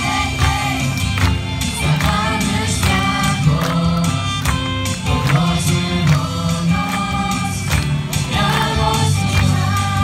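Choir singing a lively Christian song, amplified through loudspeakers, with band backing: a strong bass line and percussion keeping a steady beat.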